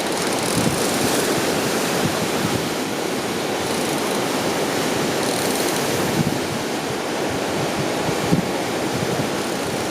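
Steady rushing noise of ocean surf along the shore, mixed with wind on the microphone.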